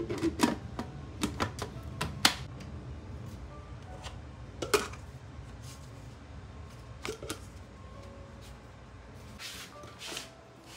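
Hard plastic clicks and knocks as the lid is pressed onto a blender jar and the jar is handled: a quick cluster of sharp clicks over the first two seconds or so, one more about halfway through and two near the three-quarter mark. Near the end a short rustling clatter as the kitchen cabinet doors are taken hold of and opened, with soft background music underneath.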